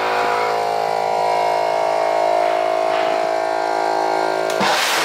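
A steady electric-sounding buzzing drone of several held tones, with a short burst of hiss about four and a half seconds in.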